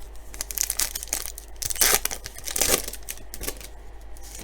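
A baseball card pack's wrapper being torn open and crinkled by hand, a run of crackling rustles that is loudest about two seconds in and dies away near the end.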